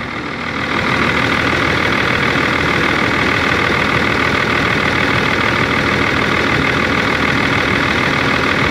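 Volvo EC210BLC excavator's six-cylinder diesel engine running steadily, a little louder from about a second in.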